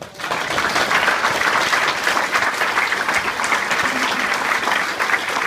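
Audience applauding: dense, steady clapping that swells in at once and holds.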